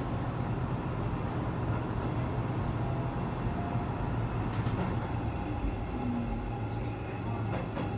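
Diesel railcar running along the track, heard from inside the car: a steady low engine hum and wheel noise, with a couple of sharp clicks about four and a half seconds in and again near the end.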